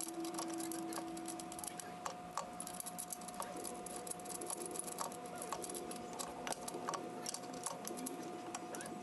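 Light, irregular metal clicks and taps as a golf cart's differential carrier and ring gear are worked by hand into the rear axle housing, over a faint steady hum.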